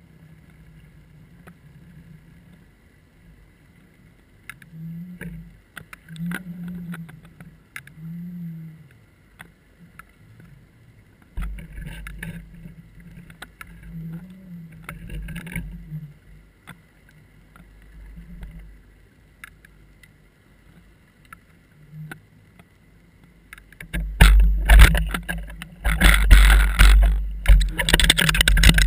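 Muffled sound picked up by an underwater camera: a faint steady whine and low hum with scattered clicks and soft low thumps, then loud rushing noise and knocks for the last few seconds.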